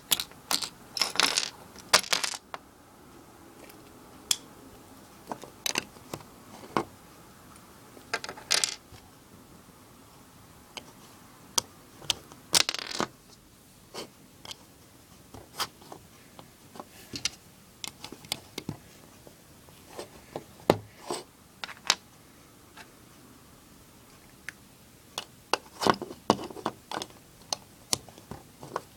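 Plastic Lego bricks clicking and clattering as pieces are handled and pressed together: scattered sharp clicks, with short spells of rattling at the start, twice in the middle and near the end.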